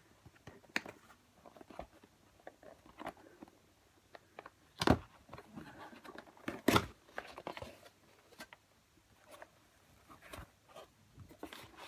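Cardboard statue box being handled and opened by hand: scattered scrapes, rustles and clicks, with two louder knocks about five and seven seconds in.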